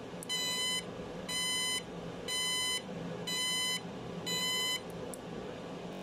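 FY-1820 wireless remote-controlled bicycle turn-signal light beeping after its remote's arrow button is pressed: five electronic beeps, each about half a second, about one a second, over a faint steady hum.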